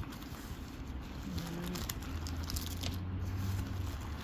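Packaging being handled and unwrapped: soft rustling and crinkling with scattered light clicks.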